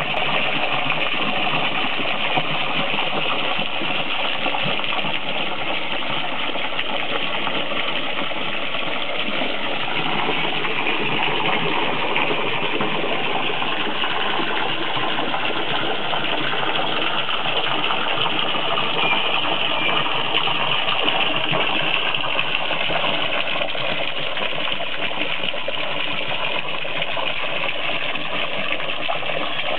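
Garden hose jet splashing steadily into shallow water on a pond liner, filling the pond.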